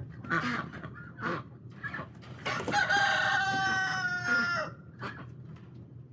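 Rooster crowing once, a long call of about two seconds that sags slightly in pitch toward the end, with hens clucking in short calls before and after it.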